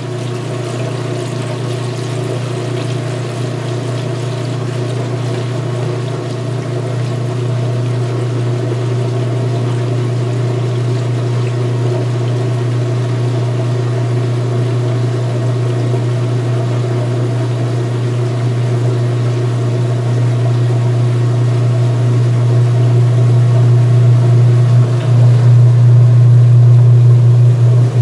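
2016 Speed Queen belt-driven top-load washer in its high-speed spin drain: the motor and drive run with a steady hum while the tub spins up and water drains out. It grows steadily louder as the tub gathers speed, loudest near the end.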